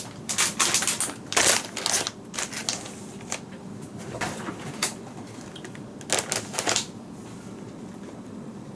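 Packaging being handled and opened: irregular rustles and clicks, bunched in the first two seconds and again about six seconds in.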